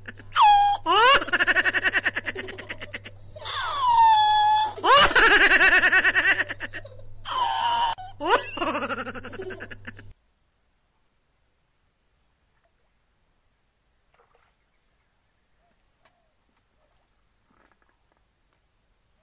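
Comic laughter sound effect dubbed over the video: high-pitched laughing with swooping pitch, cutting off abruptly about ten seconds in, followed by near silence.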